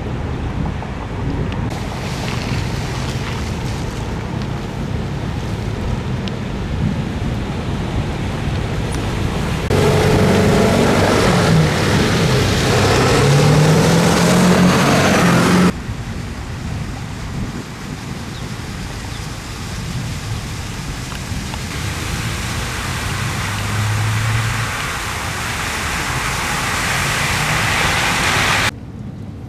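Pickup truck driving through standing floodwater. Its engine runs with a rising pitch as it accelerates, and its tyres swish and splash through the water, getting louder toward the end, over a steady background of wind and road noise.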